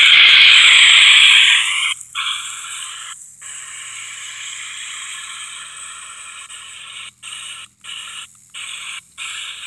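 Handheld ITC Research spirit box (a radio that keeps sweeping across stations) putting out steady static hiss. The hiss is loud for the first second and a half, then quieter, and it cuts out briefly several times as the sweep jumps, most often near the end.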